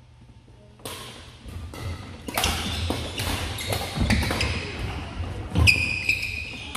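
Badminton rally: sharp racket strikes on the shuttlecock and footfalls on a wooden gym floor, starting about a second in, with a short high sneaker squeak near the end.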